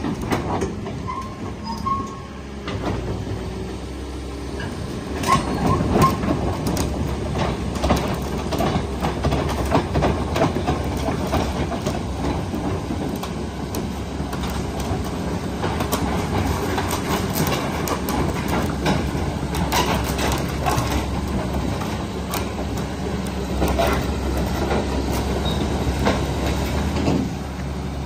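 Heavy diesel machinery running with a steady low hum, under irregular metallic clanks and knocks, loudest about five to six seconds in.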